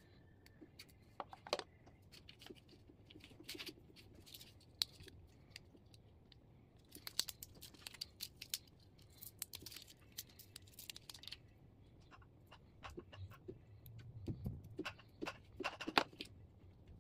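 Faint clicks, taps and rustles of a smartphone and its cardboard box being handled, bunched in a busy spell about seven to eleven seconds in and again near the end.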